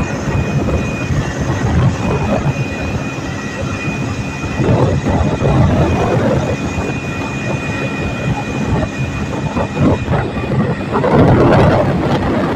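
Wind buffeting the microphone on a moving motorcycle, a loud rumble that swells and dips, over the motorcycles' engine and road noise.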